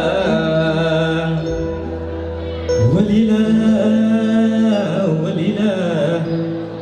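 Male singer singing into a microphone, accompanied live on a Yamaha electronic keyboard, with long held, wavering vocal notes. A new, louder phrase starts about three seconds in.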